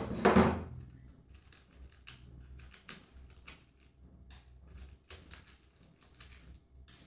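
A single thump just after the start, then small screws and hardware clicking and rattling irregularly as they are picked through in a plastic parts organizer box.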